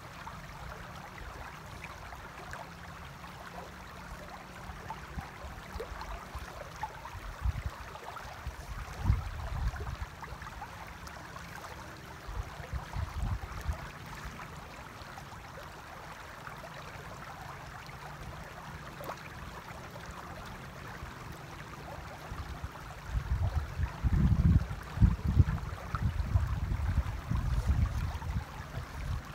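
A shallow river running steadily over stones. Low gusts of wind rumble on the microphone, coming and going and strongest near the end.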